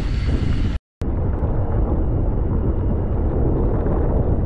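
A mountain bike rolling down a rough dirt trail: a steady rumble of tyres and bike with wind buffeting a chest-mounted action camera's microphone. The sound cuts out completely for a moment about a second in.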